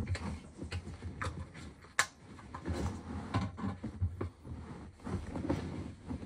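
Handling noises: rustling and light clicks of gloved hands moving clear plastic lids and picking up an X-Acto knife, with a shiny sleeve rustling. One sharp click about two seconds in is the loudest sound.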